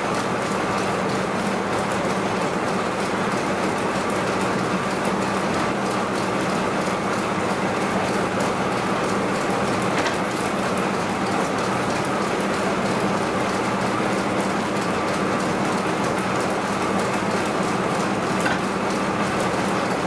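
Steam-driven vintage sawmill machinery running steadily, a dense rattling mechanical noise with a steady low hum and a click or two.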